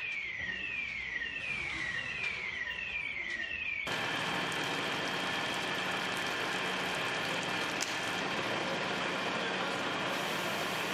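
Emergency vehicle siren wailing in quick repeated falling sweeps, about one and a half a second. After about four seconds it is abruptly replaced by a steady hiss with a faint hum.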